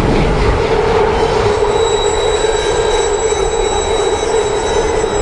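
Subway train running past the platform: a loud rumble, heaviest in the first second, under a steady high-pitched metal squeal from its steel wheels.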